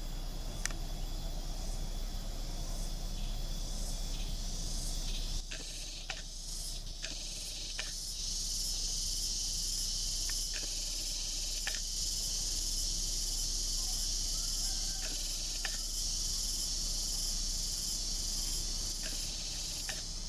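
Steady high buzzing of an insect chorus, louder from about eight seconds in, over the low rumble of a diesel passenger train moving away, with a few scattered sharp clicks.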